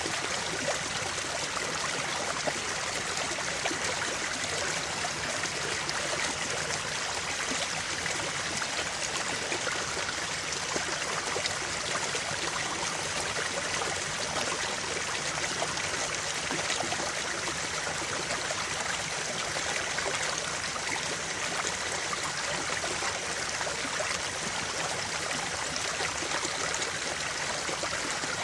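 Creek water flowing steadily over rocks, a continuous rushing and trickling with fine splashes.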